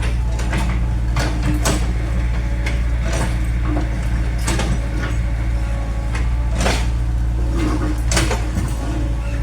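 Excavator's diesel engine running steadily, with irregular sharp clanks and knocks from the machine, about one every half second to a second.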